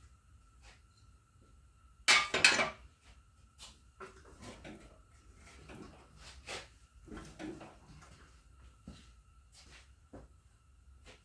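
Heavy metal parts clanking and knocking as the split halves of an Allis-Chalmers WD45 tractor are worked back together over the oiled transmission input shaft. There is a loud clatter about two seconds in, then scattered lighter knocks.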